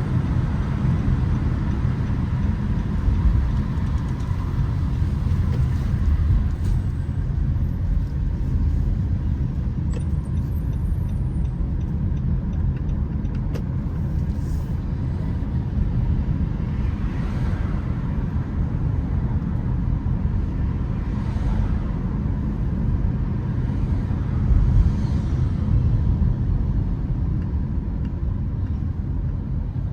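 Steady low rumble of road traffic, with a car running on city streets and a few vehicles passing.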